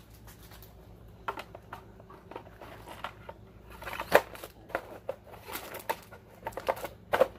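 Plastic media baskets of a Fluval 407 canister filter being handled and stacked: irregular clicks and knocks of hard plastic, the loudest about four seconds in and a quick run of them near the end.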